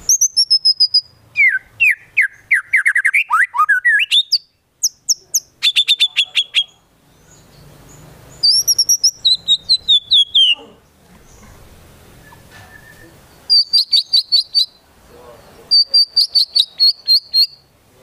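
White-rumped shama singing in separate loud phrases with short pauses between them: a falling whistle, a fast trill, and runs of rapid repeated sharp notes. Its song is filled with copied calls of other songbirds, the konin and the kinoi.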